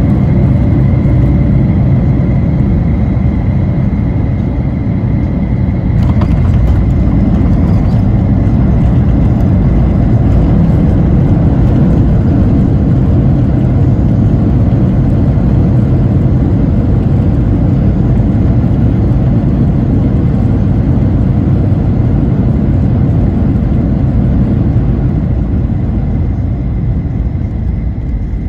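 Steady rumble of a Boeing 737-900ER's CFM56-7B engines and airflow heard from inside the passenger cabin during landing, with a faint high steady whine over the deep noise. About six seconds in the hiss briefly rises, and the noise eases slightly near the end.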